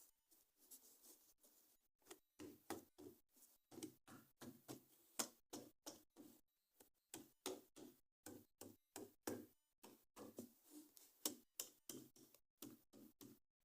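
Faint, irregular clicks and taps, two or three a second, from hands handling plastic toys and their packaging.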